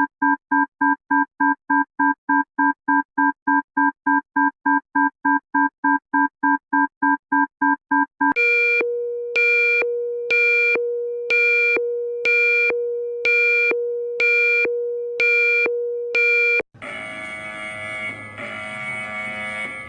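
Synthesized emergency alert tones in three parts. First a chord of three tones pulses rapidly, about four times a second. About eight seconds in it switches to a steady low tone with a high beep about once a second, nine beeps in all. Near the end a harsher, buzzy continuous alarm tone takes over.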